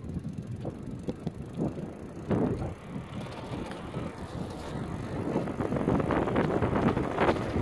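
Bicycle riding on cracked asphalt: wind rushing over the microphone and tyre noise from the moving bike, gusty and growing steadily louder.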